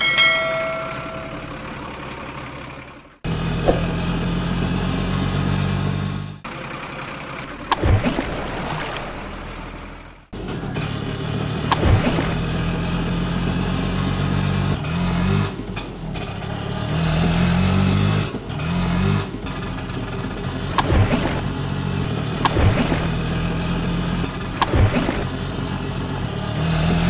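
A low vehicle engine sound running steadily, its pitch stepping up and back down in short revs several times, with sharp clicks scattered through. A short descending chime sounds at the very start.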